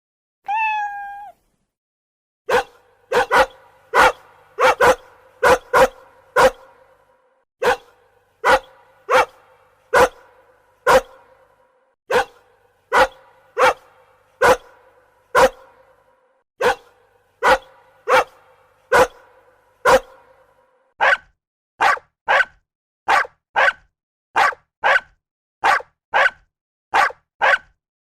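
A dog barking over and over, after one short whine at the start. The barks come about one and a half a second at first, then faster, about two a second, and shorter from about three-quarters of the way in.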